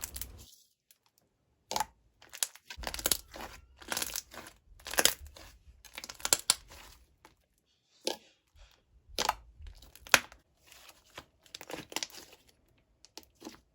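Thick glossy slime being stretched, folded and pressed by hand, giving irregular crackling, tearing pops and squelches.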